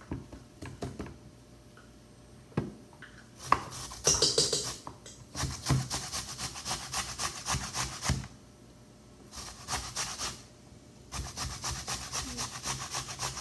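An apple with its peel on being grated by hand on a metal box grater: runs of quick rasping strokes with short pauses between them. Two sharp knocks in the first few seconds.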